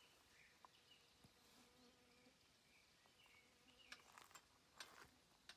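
Near silence: faint outdoor ambience, with a few soft footsteps scuffing on pine-needle and gravel ground from about four seconds in.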